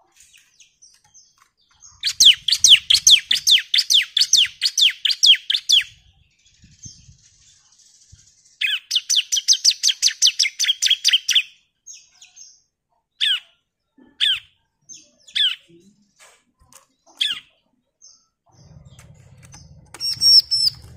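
Bar-winged prinia (ciblek) singing: two long, fast trills of sharp down-slurred notes, about five a second, the first lasting about four seconds and the second about three, then single call notes spaced a second or two apart.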